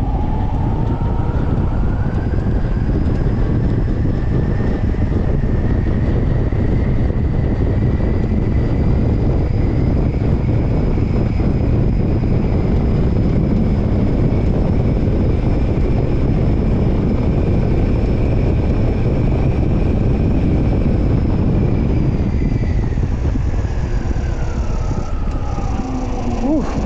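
3000-watt electric hub motor whining under full power, its pitch rising as the bike gathers speed over the first several seconds, holding high, then falling as it slows near the end. Heavy wind rush on the microphone from the high speed runs under it throughout.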